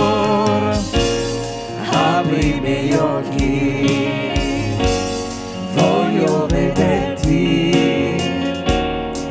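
Christian worship music from a church music group: a singing voice with a wavering melody over band accompaniment and a steady beat.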